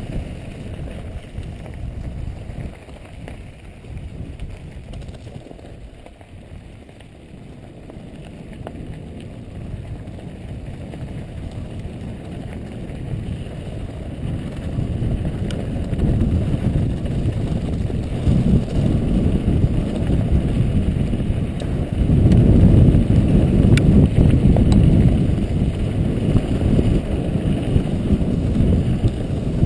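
Mountain bike descending a rocky trail, heard through a helmet-mounted camera: wind buffeting the microphone mixed with the rumble of the tyres, with a few light rattling clicks. It is quieter a few seconds in and grows louder through the second half.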